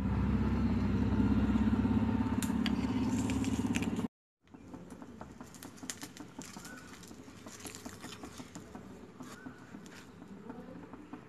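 A loud, steady low rumble for about four seconds, cut off abruptly. Then a quieter stretch of scattered light clicks and scrapes as a spatula lifts a rice-and-coconut pancake out of the pan.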